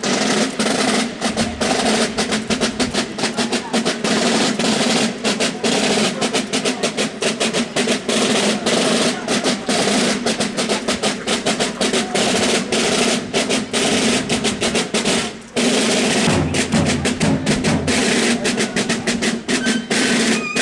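A carnival street band of snare and bass drums playing a fast, rolling beat, with sousaphones holding low brass notes underneath. The band breaks off briefly about fifteen seconds in, then starts again.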